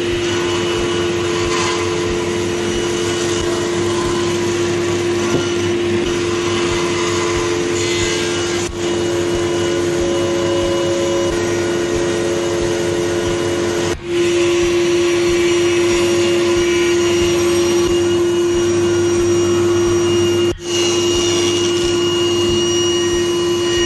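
Table saw running and ripping walnut and maple boards: a steady motor hum with the whir of the blade cutting through the wood. The sound drops out briefly about 9, 14 and 20 seconds in.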